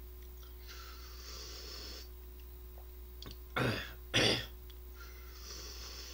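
A man coughing twice, about half a second apart, a little past the middle, while eating instant rice noodles; softer slurping before and after the coughs.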